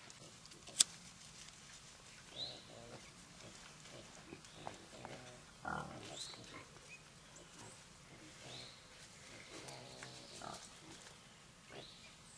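Feral hogs grunting as they feed, in scattered short calls. A single sharp click about a second in is the loudest sound.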